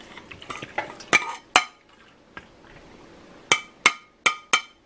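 A metal spoon knocking and scraping against a ceramic bowl and stainless-steel wok as raw chicken and liver are tipped into the dry wok: a few knocks in the first two seconds, then four quick ringing clinks near the end.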